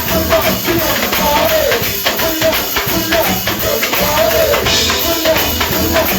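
Live band music: a steady, busy percussion beat with a shaker or tambourine over a bass line, and a repeating melodic phrase over the top.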